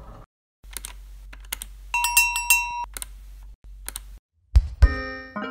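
A few sharp clicks over a low hum, with a short bell-like chime about two seconds in. Music with heavy beats starts near the end.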